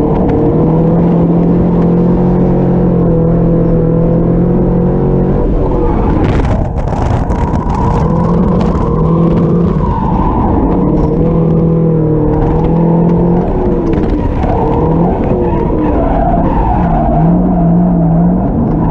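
A drift car's engine under power: it holds steady revs for about five seconds, then the revs rise and fall repeatedly, with tyres skidding. There is a burst of harsher, hissier noise about six to eight seconds in.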